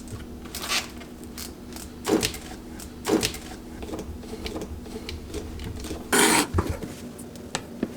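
Kitchen utensils clicking, knocking and scraping against dishes and pans while an omelette is prepared, over a faint steady hum. A brief louder rush of noise comes about six seconds in.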